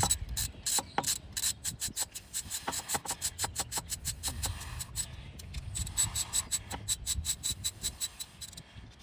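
Ratchet socket wrench clicking steadily as it runs an ignition coil's hold-down bolt in, a few sharp clicks a second, quickest in the first couple of seconds.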